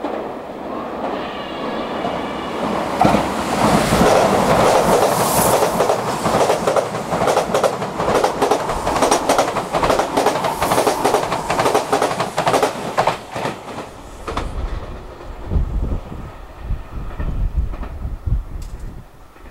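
Seibu 40000 series electric train passing through a station: a rush of running noise with a rapid clickety-clack of wheels over rail joints, fading to a low rumble as it draws away near the end.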